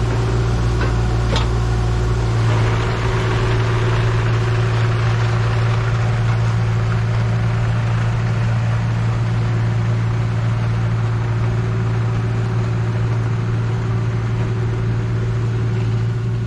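Engine of a tracked earthmoving machine running at a steady speed, with one short sharp clack about a second in.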